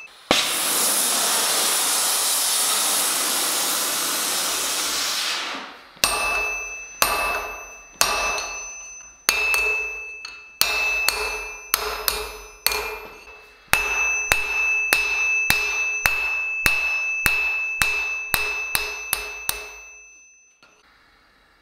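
A steady rushing hiss for the first six seconds. Then a hand hammer beats red-hot steel bar stock on an anvil, each blow ringing. The blows come about one a second, quicken to about two a second, and stop near the end.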